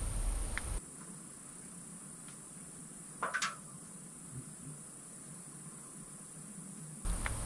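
Night insects trilling steadily at a high pitch, with one short, sudden sound about three seconds in, rising quickly in pitch. To the people present, it sounded like a small stone falling and striking a metal door.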